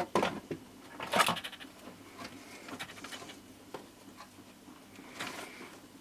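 Scattered clicks, taps and rustles of small parts and wiring being handled at a workbench, the loudest a little after a second in and a few more about five seconds in.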